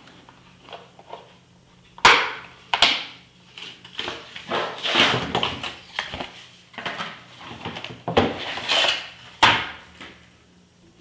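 Chrome sockets and tools being handled in a hard plastic case: sharp clacks and metallic clinks, the loudest about two seconds in and again near the end, with rattling in between.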